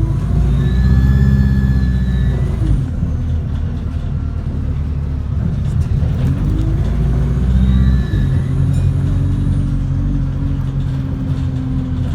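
Alexander Dennis Enviro 200 single-decker bus engine running with an unusual, dodgy-sounding noise: twice, a whine rises and falls over the steady engine drone, each time for about two seconds. The model does not normally sound like this, and the cause is unknown.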